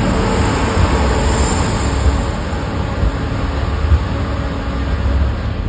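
Steady rumble of a cog railway train in motion, with another cog locomotive and its coach passing close alongside.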